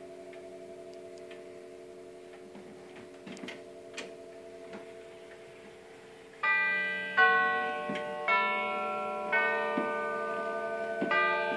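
Herschede Model 250 tubular-chime grandfather clock ticking steadily. About six seconds in, its tubular bells begin striking a chime melody, one ringing note roughly every second, each tone hanging on and fading under the next.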